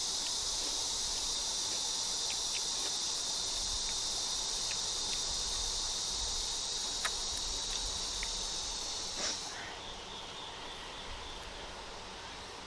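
A steady, high insect buzz that stops about nine seconds in, with a few faint clicks over it.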